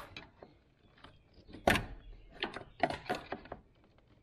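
A sharp knock a little under two seconds in, then several lighter clicks and knocks: hands and tools working at an ABS module under a Jeep's hood.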